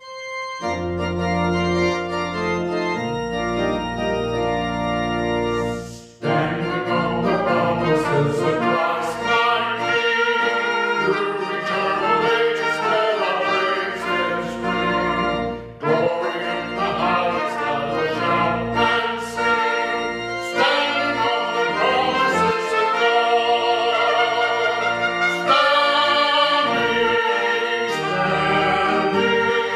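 Organ playing a hymn: sustained chords for the introduction, then after a short break about six seconds in, a man's voice sings the hymn over the organ accompaniment.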